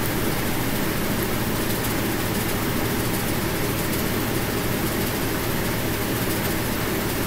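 Steady background hiss with a low hum underneath, unchanging throughout.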